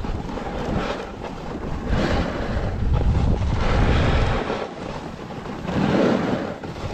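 Wind buffeting the microphone while skiing at about 12 mph, over the hiss and scrape of skis sliding on packed, groomed snow. The noise swells louder twice, from about two seconds in and again near the end, as the turns bite.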